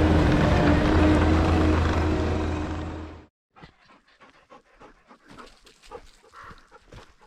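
Heavy-equipment diesel engine running steadily with a deep hum, dying away about three seconds in. After it, only faint, irregular rustles and clicks.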